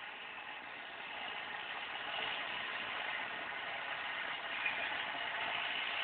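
John Deere 6310 tractor's diesel engine running steadily, growing louder as the tractor drives forward pushing a loader bucket heaped with cut grass.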